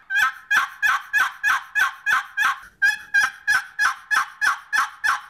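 Wooden turkey box call yelping: the paddle stroked across the box gives an even run of about three yelps a second, each note breaking from high to low. A short pause near the middle comes before a second run.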